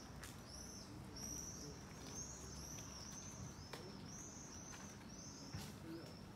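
Small birds chirping over faint background noise: short, high, arching chirps, about two a second, with a few faint clicks.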